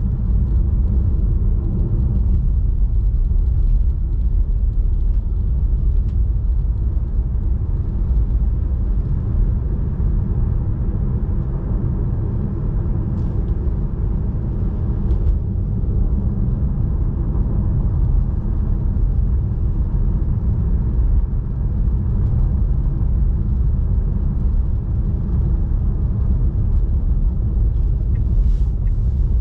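Steady low rumble of tyre and road noise from a Tesla Model 3 driving on a snow-covered highway at about 65 km/h.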